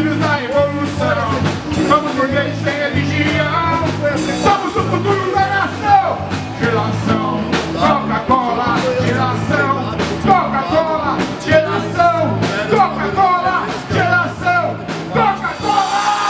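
Rock song with a singing voice over a steady bass line.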